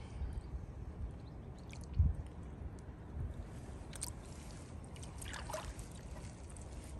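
Lake water sloshing and trickling around a large koi carp as it is eased out of a floating retention sling and swims away, with a short bump about two seconds in.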